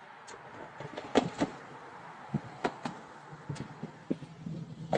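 Footsteps on a concrete bridge sidewalk, a series of sharp taps over a faint hiss of road traffic; a passing vehicle's low engine hum comes in near the end.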